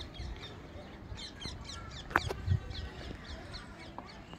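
Small birds chirping over and over in short downward chirps, with a sharp clink of a steel feeding bowl about two seconds in, followed by a low thump, as langurs eat from the bowl.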